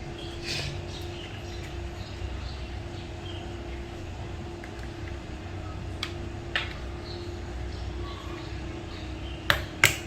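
Scattered sharp clicks as laptop RAM modules are fitted back into their slots, two louder clicks in quick succession near the end, over a steady low hum.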